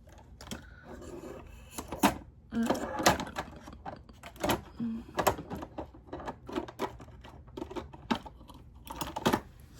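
Small scissors snipping at irregular intervals, a dozen or so short sharp snips, trimming a doll's rooted eyelashes.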